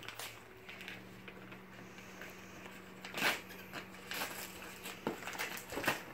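Brown paper gift wrapping being picked at and torn by hand: scattered rustles and crinkles, the loudest about three seconds in.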